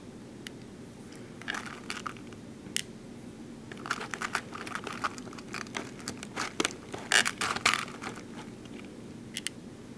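Small plastic BeadOs craft beads clicking and rattling as fingers pick through them in a plastic compartment tray: scattered light clicks in short clusters, busiest about four and seven seconds in.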